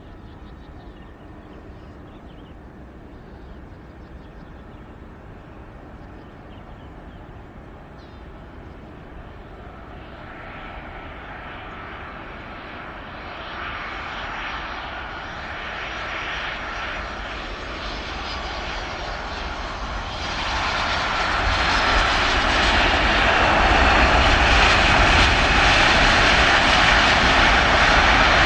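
An airliner's engines approaching: faint at first, growing steadily louder about a third of the way in, then jumping to a loud, full roar about two-thirds of the way in as the aircraft passes close.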